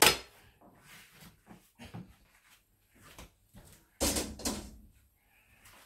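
Cookware handled on a stainless steel counter: a saucepan set down with a knock at the start, a few faint clatters, then a louder scraping clatter about four seconds in as the frying pan is moved off.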